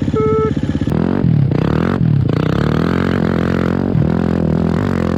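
Enduro motorcycle's four-stroke engine under way on a rough track, the revs dropping and picking back up several times, with rattling from the bike.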